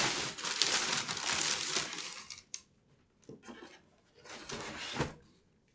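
Packing paper crinkling and rustling as it is pulled out of a shipping box, then a few lighter rustles and small knocks, with one sharper knock near the end.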